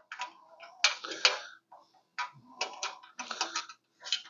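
A quick-release pin being fitted through the holes of a rack's fold-down table bracket: an irregular run of short clicks and knocks from the hardware being handled.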